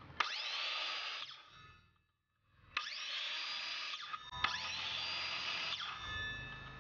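AEG 18V cordless circular saw motor run in three short trigger pulls, the blade spinning freely without cutting. Each pull gives a rising whine that levels off and then winds down. The second and third pulls come close together.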